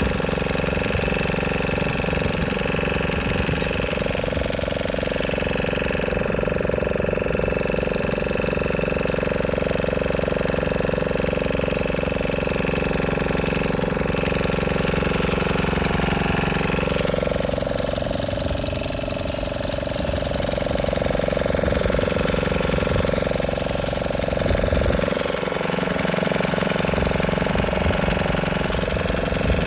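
Boat engine running steadily, with a low, even drone; its pitch drops briefly about two-thirds of the way through, then comes back up.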